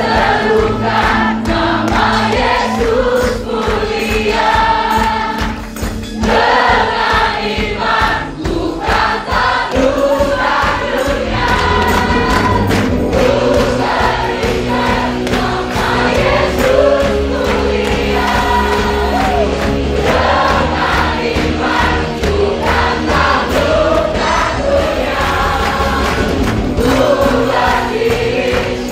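A group of worship singers on microphones singing an Indonesian-language praise song together, over a live band with a steady beat.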